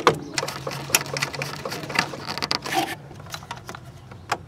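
Scattered small clicks and light taps of a screwdriver and parts being handled under a car's dashboard, thinning out after about three seconds, over a low steady hum.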